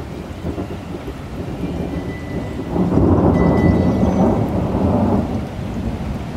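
Steady rain from a cloudburst, with a rumble of thunder swelling up about three seconds in and dying away about two seconds later.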